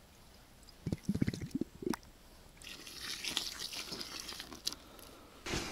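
Small plastic bottle being filled in a river, gurgling in short bursts about a second in. Then the water is poured from the bottle onto dry groundbait in a bucket, a steady soft splashing hiss.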